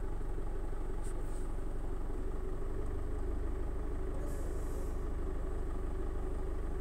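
Steady low mechanical hum with no changes.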